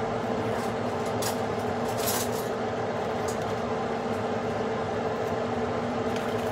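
A steady mechanical hum with two held tones over a low noise, with a few faint crackles about one and two seconds in.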